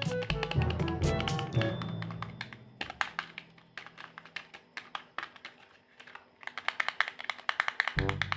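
Background music: a bass line and melody notes that fade out about two seconds in, followed by a run of rapid tapping clicks that grows denser near the end.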